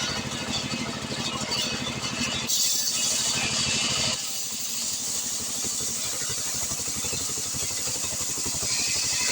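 Stihl 070 chainsaw's two-stroke engine running. About two and a half seconds in it gets louder and a strong hiss comes in, which stays while the engine's low hum thins out for a second or two.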